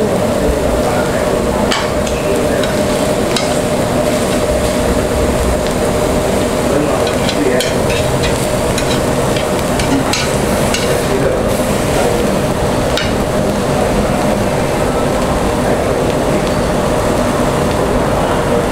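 Beef sizzling on a charcoal tabletop grill plate, with an occasional sharp click of metal tongs against the grill as the pieces are turned.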